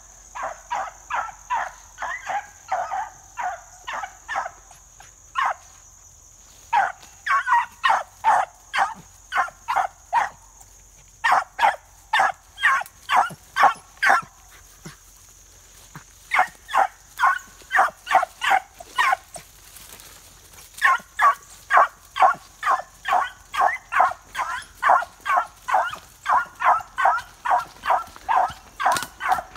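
Young beagle hound baying as it runs a scent trail, giving tongue in runs of short, sharp barks about two to three a second, broken by brief pauses.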